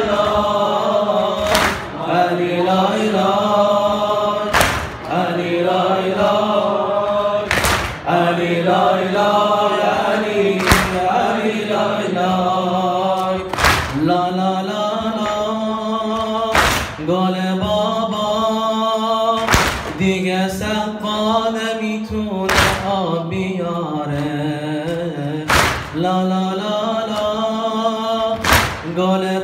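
A male reciter chanting a Farsi noha, a Shia mourning lament, into a microphone in long, wavering held lines, with other voices joining in. A heavy thump falls about every three seconds, keeping a slow, even beat.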